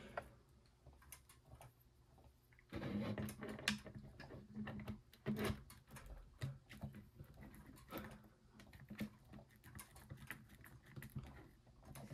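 Light plastic clicks and taps as clear acrylic track pieces are handled and pushed into the sockets of a plastic toy base, in an uneven run that is busiest between about three and six seconds in. A low hum comes and goes under the busier stretch.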